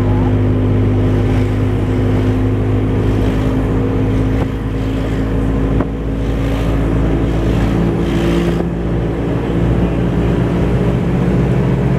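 A vehicle's engine running steadily with a low, even hum, with wind noise over it.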